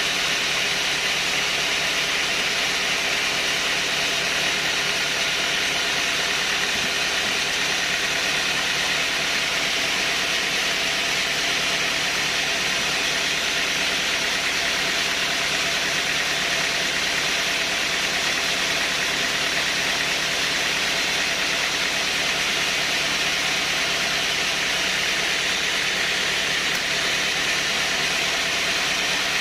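Sawmill machinery running steadily, a constant mechanical drone with a high whine that does not change.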